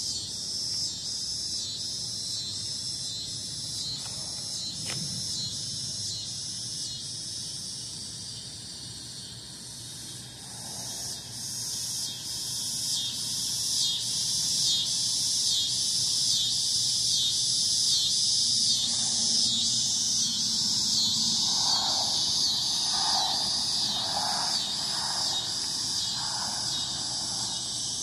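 Chorus of cicadas buzzing in an even pulsing rhythm, about one and a half pulses a second, growing louder about ten seconds in.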